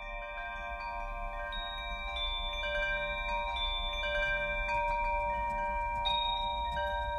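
Wind chimes ringing, many overlapping tones sustaining, with new notes struck every second or so over a low rumble.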